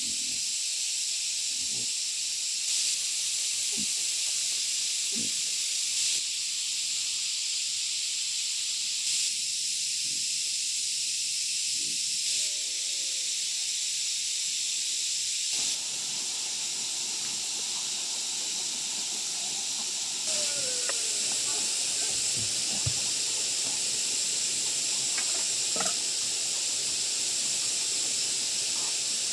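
Steady, high-pitched insect chorus that swells briefly about every three seconds, with a few faint knocks and short calls in the background.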